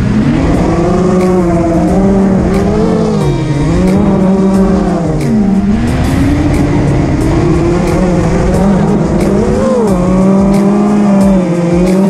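FPV quadcopter's motors and propellers whining in flight, the pitch dipping and climbing repeatedly as the throttle changes.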